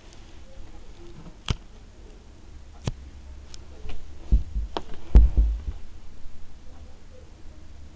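Sharp clicks and knocks of hard LEGO plastic parts, about half a dozen spread out one at a time, with the heaviest knocks a little past the middle, over a low steady hum.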